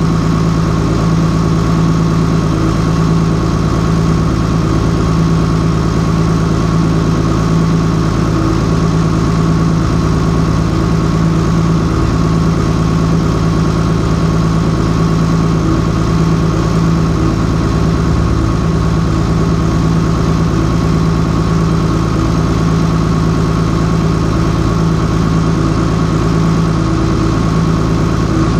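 Turbo-diesel engine of a 1971 Oliver 1855 tractor idling steadily, with an even low hum and no change in speed.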